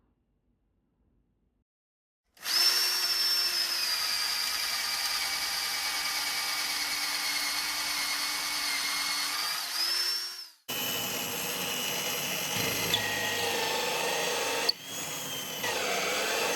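An electric power tool's motor runs steadily with a high whine for about eight seconds, starting a couple of seconds in. After abrupt cuts come two more stretches of it running with shifting pitch, the last one falling as the motor slows.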